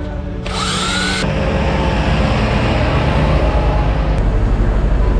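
A power tool whirring: a short rising whine about a second in, then a steady running noise that grows louder towards the end.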